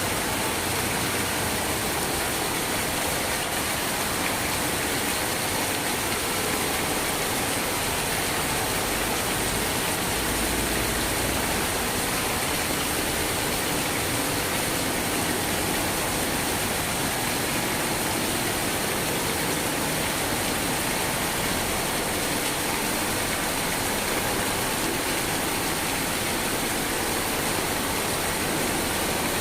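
Steady, even rain hiss with no distinct drops or thunder standing out.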